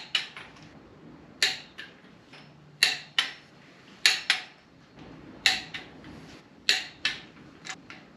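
Snap-on click-type torque wrench clicking off at 25 ft-lb on the LS1's ARP cylinder-head bolts, on the first pass of the torque sequence. There are about seven sharp clicks, one every second and a quarter or so, and each has a fainter click just after it.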